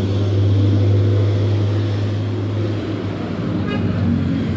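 Steady low engine hum from a motor vehicle, easing off about three seconds in, with a brief higher toot about four seconds in.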